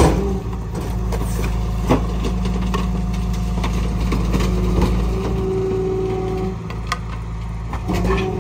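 Rear-loading garbage truck running steadily while its hydraulic packer cycles, sweeping a mattress from the hopper into the body. A few sharp knocks and clanks come through, and a higher steady tone joins about halfway in for a couple of seconds.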